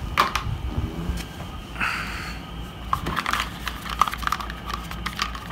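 Hard plastic dust cover for a gaming chair's side bracket being handled: a scatter of light clicks and knocks, with a short scraping rustle about two seconds in.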